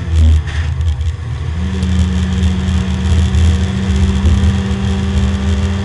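Porsche 924 race car's four-cylinder engine heard inside the cockpit: the note drops as the driver lifts off to slow for a bend, with a brief blip, then picks up again about one and a half seconds in and runs steadily under throttle.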